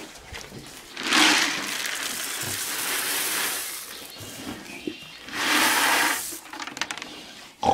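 Dry pig feed pellets poured from a plastic scoop onto straw-covered ground, hissing down twice: a long pour of about three seconds, then a shorter one of about a second.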